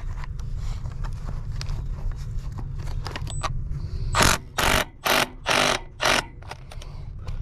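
Five quick, loud scraping strokes in a row, about four seconds in, over a steady low rumble and a few light ticks: work at the clay sewer pipe while a rubber Fernco coupling is fitted.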